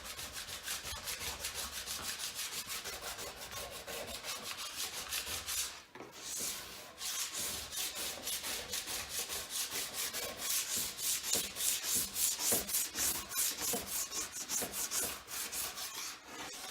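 Wax scraper being pushed in rapid repeated strokes along a snowboard base, scraping off excess hardened wax after ironing; a short pause about six seconds in.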